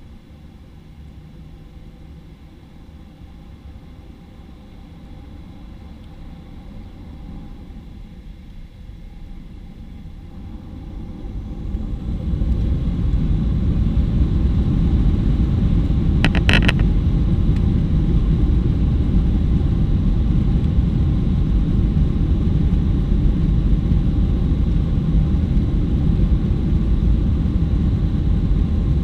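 Boeing 737-800's CFM56-7B jet engines heard from inside the cabin: a low rumble that builds slowly, then rises sharply about twelve seconds in and holds loud and steady, as takeoff thrust is applied. A brief high ringing sound comes a few seconds after the rise.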